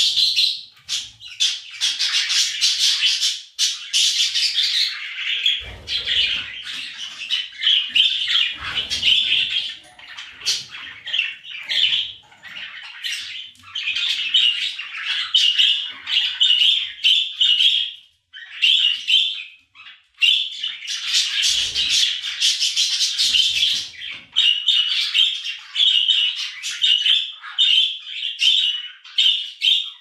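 Budgerigar chatter: a fast, almost unbroken run of chirps, squawks and warbling, pausing briefly twice in the second half, with a few soft low thumps.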